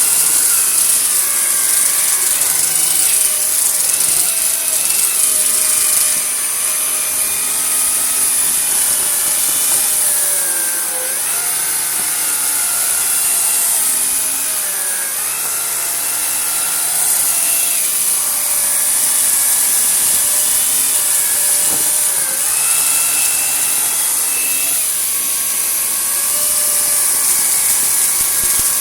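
Vacuum cleaner running steadily on carpet, a loud hiss of rushing air over a motor hum whose pitch drifts up and down as the load changes.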